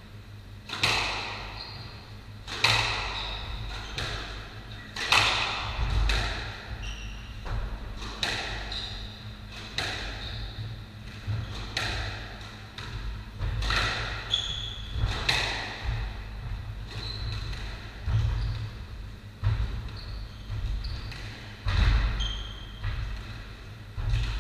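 Squash rally: the ball is struck by rackets and smacks off the court walls, about one sharp, echoing hit every second or so, with short squeaks of shoes on the wooden floor between the hits.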